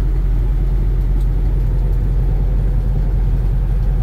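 Steady low drone of a semi truck's diesel engine and road noise, heard inside the cab while cruising at highway speed, about 62 mph.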